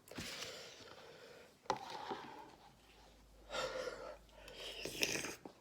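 A man's faint, heavy breathing: two breathy exhales in the second half, with a small click a little under two seconds in, as his mouth burns from spicy instant noodles.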